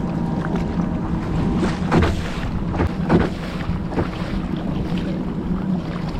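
A boat engine drones steadily at a constant pitch, with a few splashes of water mixed in.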